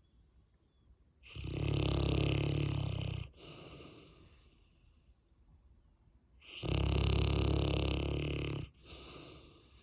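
Saint Bernard snoring loudly in deep sleep: two long snores about two seconds each, one near the start and one about five seconds later, each followed by a shorter, quieter breath.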